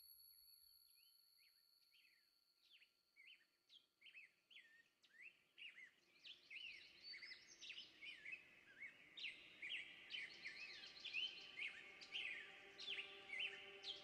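A chime's ring fading away, then faint bird chirps that start a few seconds in and grow busier and louder, many short calls overlapping. Soft steady tones join in the second half.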